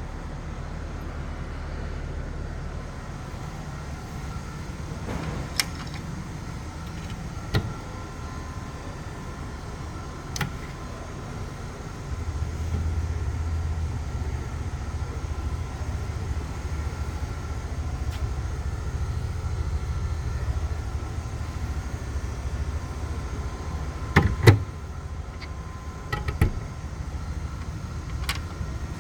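A steady low mechanical hum with faint steady whining tones, getting louder about twelve seconds in. Several sharp knocks or clicks sound over it, with a loud cluster near the end.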